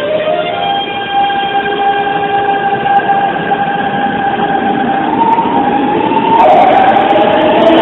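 Electric train running, its traction motors giving a pitched whine that holds and then steps up in pitch, with the running noise growing louder about six seconds in.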